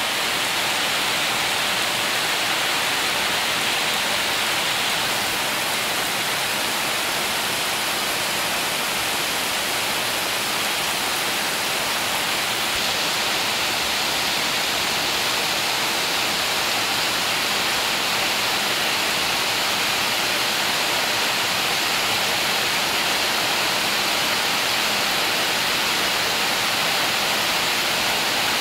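Heavy rain falling steadily on corrugated tin roofs and trees, a dense even hiss with no separate drops standing out.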